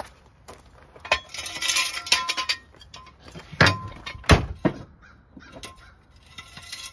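A few sharp metal knocks and clanks from working the floor jack and wheel of a car being let down. The loudest come about three and a half and four and a quarter seconds in, with a harsh rasping sound between one and two and a half seconds in.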